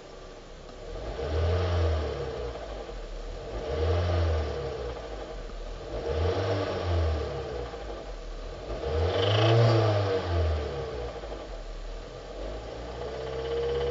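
2005 Hyundai Sonata's 2.4-litre four-cylinder engine blipped from idle four times, each rev rising and falling back, with a knocking in the engine that the owner traced to worn crankshaft bearings.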